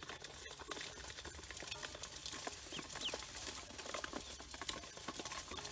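Many ducklings jostling together in a metal basin: a steady patter of small taps and scrapes, with a few short peeps about halfway through.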